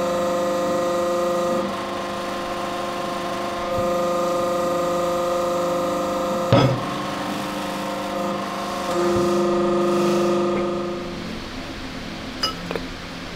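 Hydraulic press running with a steady hum while its ram presses a new bearing into a Grant tank suspension roller's hub. There is one sharp knock about six and a half seconds in. The hum stops about two seconds before the end, followed by a few light metal clicks as the part is handled.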